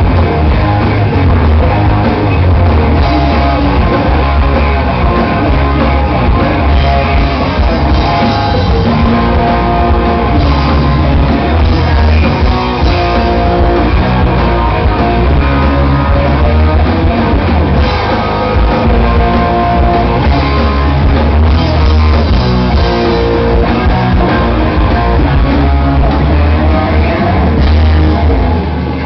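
Loud live rock music from a band: guitar to the fore over drums and bass, with vocals at times. It ends abruptly right at the end.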